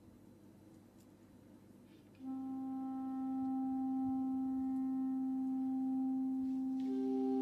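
Clarinets opening a piece softly: after a couple of seconds of quiet room tone, one long held note comes in, and near the end a second, higher note joins it, the two sustained together.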